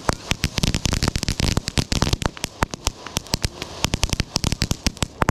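Consumer ground fountain fireworks spraying sparks, with a hissing rush and a dense, rapid stream of crackling pops.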